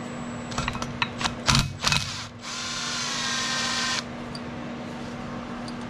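A few clicks and knocks as a socket goes onto the 8mm 12-point bolt of a Ford 6.0 turbo's VGT solenoid. Then a power tool whirs for about a second and a half, spinning the bolt out, and stops abruptly. A steady low hum runs underneath.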